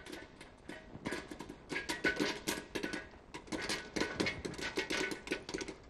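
Background music with a quick, irregular patter of light percussive taps.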